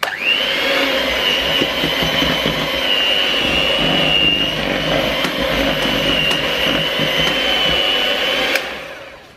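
Russell Hobbs electric hand mixer running, its beaters whisking cake batter in a plastic bowl. The motor whine comes up at once, holds steady, and stops near the end.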